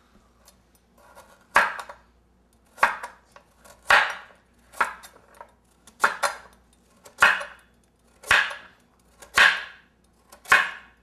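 Kitchen knife cutting a large carrot into angled chunks on a cutting board, about one cut a second, each a sharp knock.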